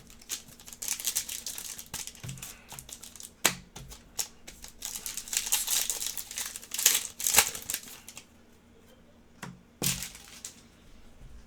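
Trading cards and their packaging being handled: crinkling, rustling stretches with a few sharp taps between them.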